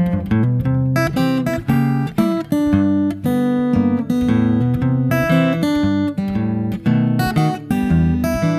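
Background music: a bright, steadily paced piece led by plucked and strummed acoustic guitar.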